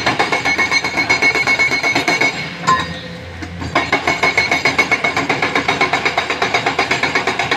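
Excavator-mounted hydraulic breaker hammering rock in a fast, even run of blows, about seven a second, pausing for about a second midway and then starting again, over the low running of diesel engines.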